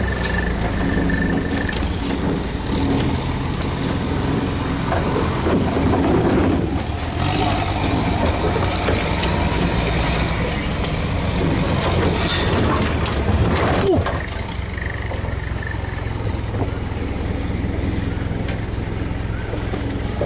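Off-road 4x4's engine running steadily at crawling speed, heard from inside the cab. Around the middle, branches scrape and knock against the body and windscreen as it pushes through brush.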